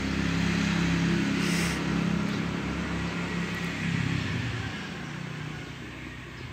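A motor vehicle engine running nearby, a low steady hum that swells and then fades away after about five seconds.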